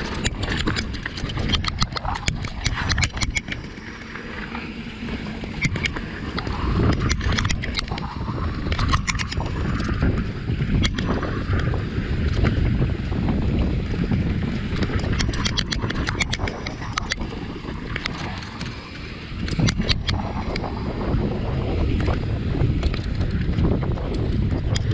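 Mountain bike riding fast over a dirt trail: wind buffeting the microphone and tyres rolling over packed dirt, with frequent sharp rattles and clicks from the bike over bumps.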